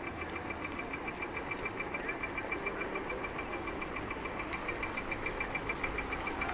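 Pedestrian crossing signal ticking out rapid, even high beeps, about seven a second, over street noise. The beeping cuts off near the end.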